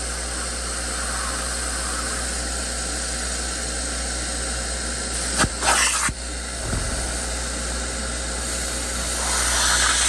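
Upholstery extractor running, its clear plastic hand tool sucking rinse water and dirt out of a fabric car seat with a steady suction hiss over a low motor hum. A short, louder burst of sucking comes about five and a half seconds in, and the hiss swells near the end.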